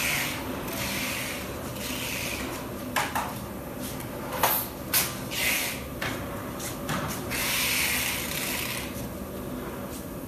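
A bicycle being moved and settled into the lower wheel tray of a two-tier bike rack: a few sharp metal clicks and knocks in the middle, between stretches of rolling and rubbing noise.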